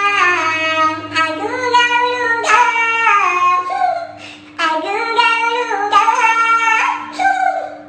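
A high-pitched voice singing in bending, sliding phrases over a steady held note, breaking off briefly about halfway through.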